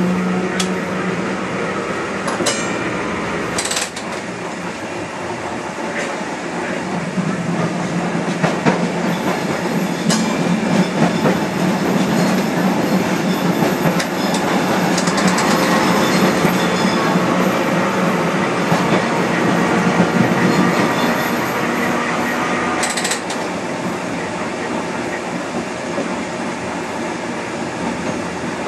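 Preserved Rotterdam museum tram, heard from aboard as it runs along the line: a steady rumble of wheels on rail with a low hum, and a few sharp clicks over the track near the start and once more later on. It grows louder for a stretch in the middle as it passes beneath a concrete overpass.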